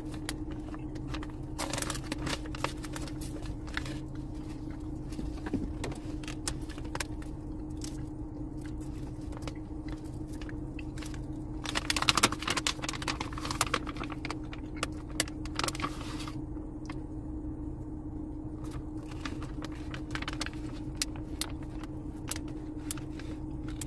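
Plastic jerky bag crinkling and rustling as it is opened and handled, in irregular bursts with small clicks, loudest about twelve seconds in, over a steady low hum.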